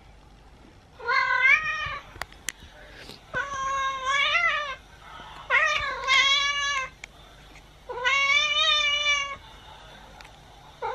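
A cat meowing in a recorded video played on a tablet: four long, drawn-out meows about two seconds apart, with a fifth starting at the end.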